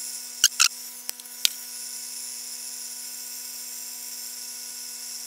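Cheap diode laser engraver running a small fill pass to sinter powdered sugar: a steady, high-pitched whine with a hum under it, with a few light clicks in the first second and a half.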